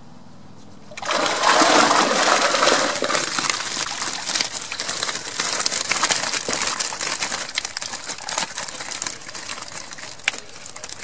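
Water splashing and streaming off a mesh fishing keepnet as it is hauled out of the river, starting suddenly about a second in, with many small splashes and clicks from the fish and dripping net.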